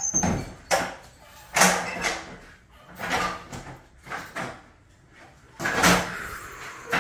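Manual pallet jack setting a crate down on a concrete floor: a series of short clunks and scrapes, about half a dozen over several seconds.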